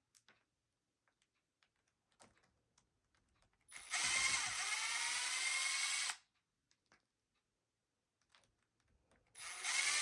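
Small electric screwdriver spinning in two bursts of about two seconds each, one about four seconds in and one near the end, backing out the screws of the RC crawler's original upper link mount; its whine dips in pitch at the start of the first burst. Faint clicks of small parts being handled in between.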